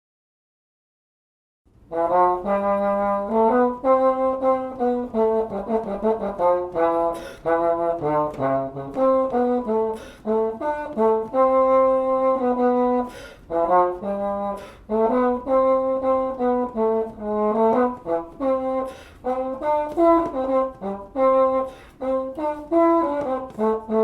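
Euphonium playing a lively melody of short, separate notes that starts after about two seconds of silence.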